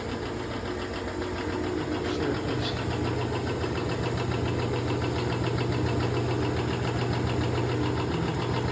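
General 340 drill press running steadily under power: its motor and belt hum with a fast, fine metallic rattle riding on it. This is the vibration and rattle that persists with the belt guard bolted down tight.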